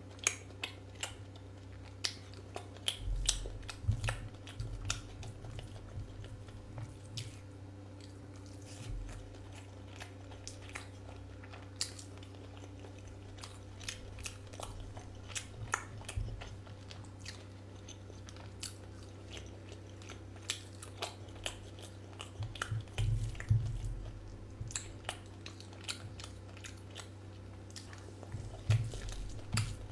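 Close-miked chewing and biting of someone eating mutton liver curry, with many small wet clicks and smacks. There are heavier bouts of chewing a few seconds in, past the middle and near the end, over a steady low hum.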